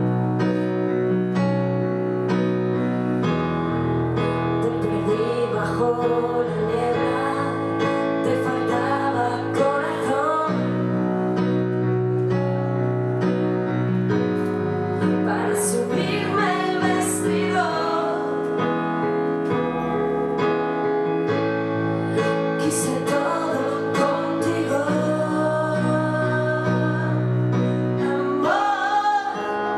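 Live band performing a pop song: held keyboard chords that change every few seconds over a bass line, with a woman's voice singing in places.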